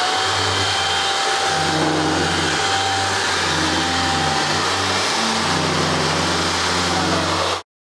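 Electric blower powering a homemade hovercraft, running at full power with a steady loud whirring rush of air and a faint high whine. It cuts off suddenly near the end.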